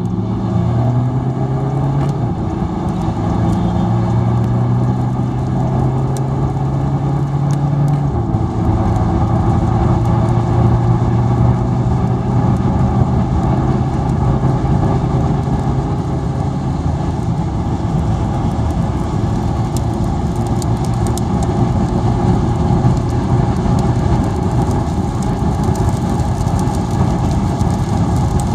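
A car heard from inside its cabin at motorway speed: an engine hum over heavy tyre and wind noise. The engine pitch climbs slowly and drops twice, about two seconds in and again about eight seconds in.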